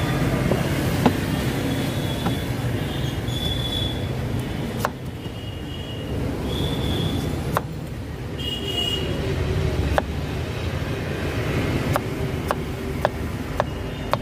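A large kitchen knife chopping pineapple on a wooden cutting board, with several sharp, irregular knocks as the blade strikes the board, over a steady rumble of road traffic.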